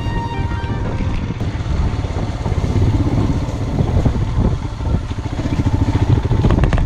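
Royal Enfield Himalayan's single-cylinder engine running as the motorcycle is ridden along a rough, muddy dirt track, with an uneven rumble.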